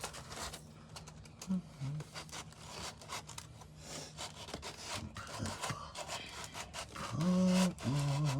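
Hand sanding of a Bondo patch on wooden brick mold with purple sandpaper: repeated quick scratchy rubbing strokes. Near the end a short hum-like voice sound is louder than the sanding.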